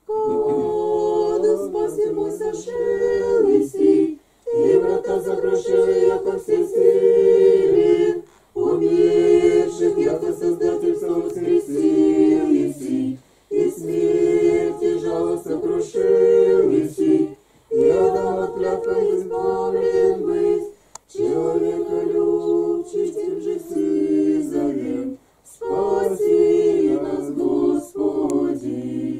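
Small group of men and women singing Russian Orthodox church chant unaccompanied. It comes in sung phrases of about four seconds, each ending in a short break for breath.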